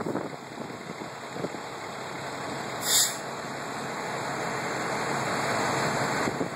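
Fire truck engines running steadily, the noise growing gradually louder and dropping back just before the end. About three seconds in comes one short, loud hiss of compressed air, like an air-brake release.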